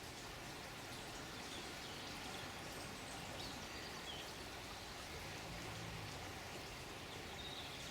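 Steady running water, with a few faint, short bird chirps now and then. A brief low hum comes in about five seconds in.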